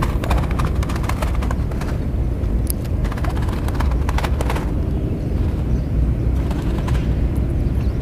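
Spinning rod and reel handled right at the microphone: three short runs of rapid clicking and rattling over a steady low rumble.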